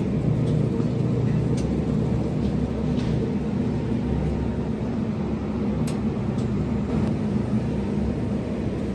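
Steady low hum of supermarket refrigerated display cases and their machinery, with a few faint clicks.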